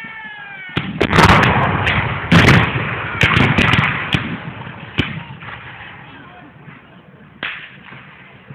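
Black-powder gunfire: a ragged run of shots, several close together over the first few seconds, then single shots spaced farther apart, each followed by a rolling echo.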